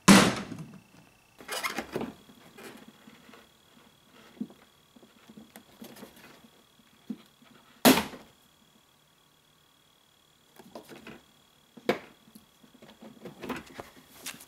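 Plastic rear diffuser being pried and pulled off a Camaro's bumper by hand. Irregular plastic knocks, clicks and scraping are heard as the panel and its retaining clips work loose. The sharpest knocks come at the very start and about eight seconds in, with another near the end, and there is a short lull in between.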